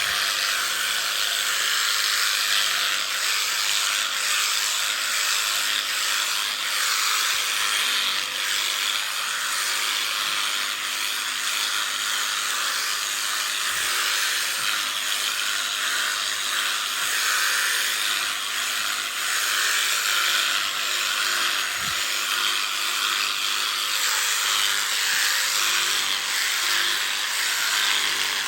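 Electric sheep-shearing clippers running steadily with a constant buzzing hiss.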